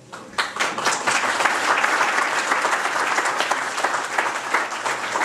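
Audience applauding, a dense patter of many hands clapping that starts abruptly about half a second in.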